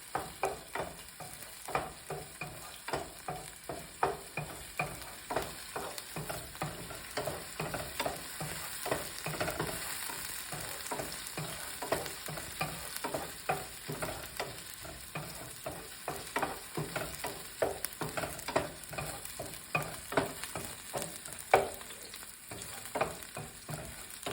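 Garlic and onion sautéing in hot oil in a pan, sizzling steadily, while a utensil stirs them with repeated short knocks and scrapes against the pan, about two a second.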